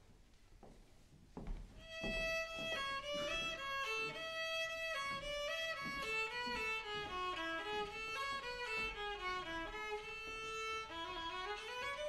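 Solo violin playing a melody of held and stepping notes, starting about two seconds in after a brief hush.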